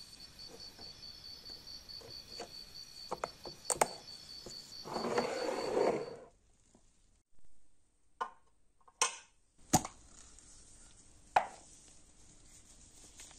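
Handling of a small clear plastic box, with sharp clicks and a burst of rustling as its snap lid is pressed shut, against a steady, high pulsing tone. After the tone stops, a few separate sharp plastic clicks come as a plastic bottle cap is worked open.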